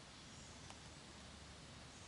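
Near silence: faint steady outdoor background hiss, with one soft tick about two-thirds of a second in.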